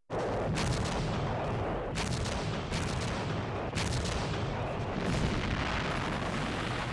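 Artillery fire from field guns, starting abruptly: about five sharp shots roughly a second apart over a continuous rumble of gunfire.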